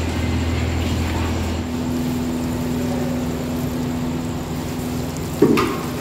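Steady machine drone, engine-like. Its held hum changes pitch about a second and a half in. A short, louder sound comes near the end.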